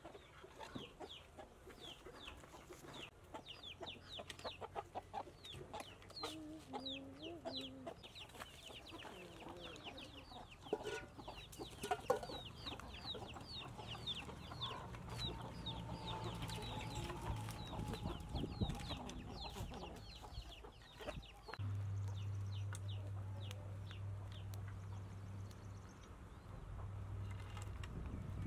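Chickens clucking, with many short, high chirps repeating through most of the stretch. Sharp clicks and knocks of handled wood mix in. A steady low hum comes in strongly about three-quarters of the way through.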